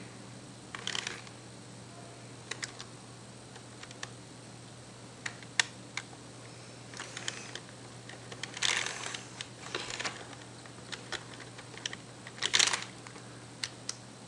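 Computer keyboard typed at random in short, irregular bursts of clicks with pauses between. A faint steady low hum runs underneath.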